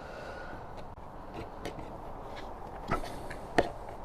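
Scattered light clicks and knocks of a hand tool working the windscreen mounting bolts as they are nipped up tight, with two sharper knocks about three and three and a half seconds in.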